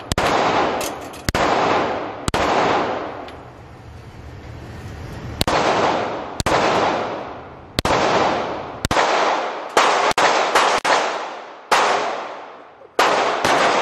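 Semi-automatic pistol shots in an indoor firing range. There are more than a dozen at uneven intervals, with a pause of about three seconds after the first few, and each shot rings out in a long echo down the concrete lane.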